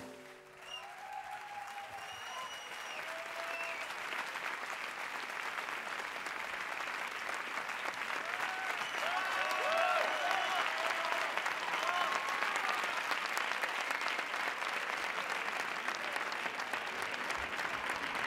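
Audience applauding, the clapping swelling over the first ten seconds or so and then holding, with scattered shouts and cheers through it.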